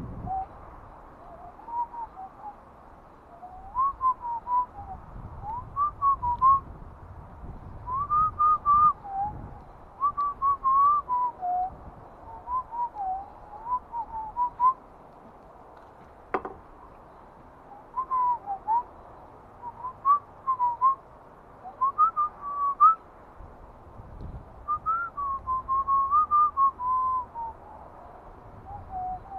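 A man whistling a tune in short wavering phrases, with a single sharp knock about sixteen seconds in.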